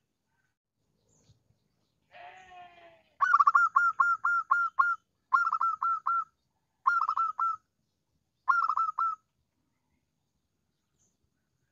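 Zebra dove (perkutut) singing its lure call for rival doves: four runs of rapid, short, downward-curving cooing notes, the first run the longest at about eight notes, the later ones three to five notes each, with short pauses between. A brief lower, rougher sound comes just before the first run.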